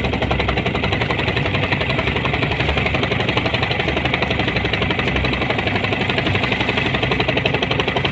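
A small wooden fishing boat's engine running steadily under way, with a rapid, even beat.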